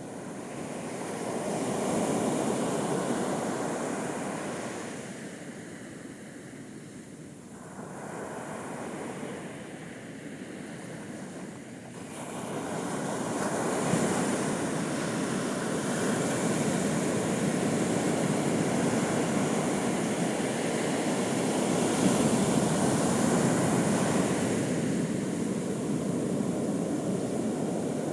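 Ocean surf breaking on a beach: a wash of waves swelling and receding, with one swell about two seconds in and a bigger, longer surge from about halfway through.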